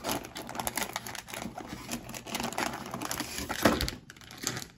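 Plastic snack wrappers crinkling and rustling as a hand rummages through a cardboard box of packaged snacks, with one sharper crackle late on.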